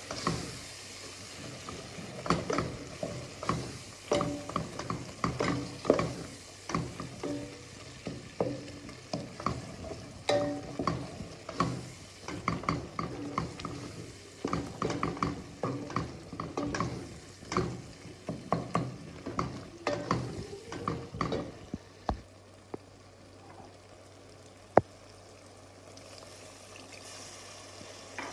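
A cooking utensil stirring and knocking in a pot, with irregular clinks and scrapes that ring briefly. The clatter stops about three-quarters of the way through, leaving a low hum and one sharp click near the end.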